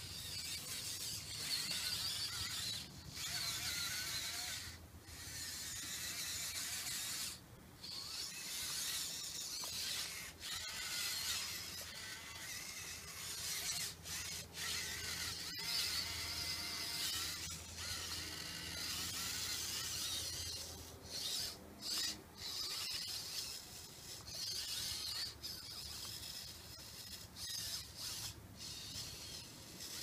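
Small electric drive motors and gearing of a radio-controlled model skid steer whining as it drives over dirt, the pitch wavering with the throttle and cutting out briefly several times when the machine stops.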